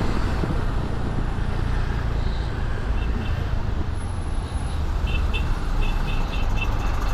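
Honda SH150i scooter's single-cylinder engine running steadily in slow, heavy city traffic, with the rumble of surrounding trucks and buses. Short high beeps sound twice about three seconds in and then in a quick run of several beeps in the second half.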